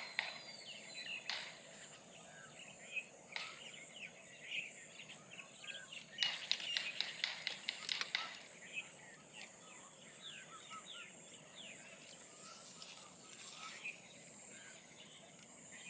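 Woodland ambience of birds chirping and calling, over a steady high-pitched drone of insects. About six seconds in, a quick run of a dozen or so sharp ticks lasting about two seconds.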